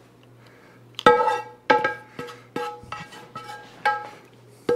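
Background music of plucked string notes in a pizzicato style, coming in about a second in at roughly two notes a second, each note starting sharply and dying away.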